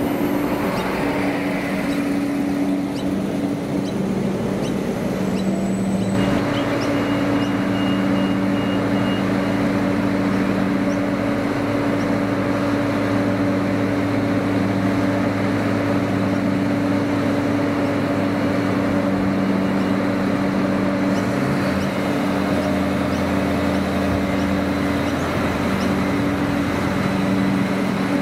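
Adelaide Metro 3000 class diesel railcars running: first a railcar passing close by, then, from about six seconds in, a railcar's diesel engines running steadily at the platform. About twenty seconds in a deeper engine note comes in as the railcar pulls away.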